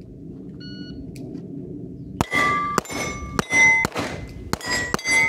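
A shot timer beeps once. About a second later a pistol fires a fast string of about seven shots, each followed by the ring of a struck steel plate.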